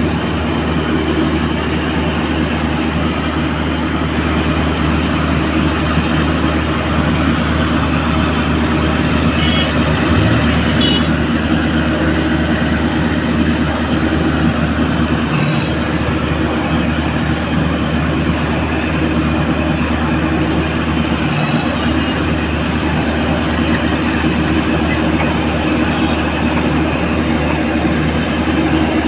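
A crane's heavy engine running steadily, a constant low drone that holds the same speed throughout.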